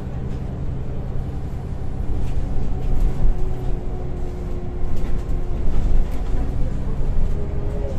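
Scania L94UB single-deck bus heard from inside the passenger saloon while driving: the five-cylinder Scania diesel running with a steady low drone. A steady whine joins about three seconds in and fades near the end, with a few light rattles and knocks from the body.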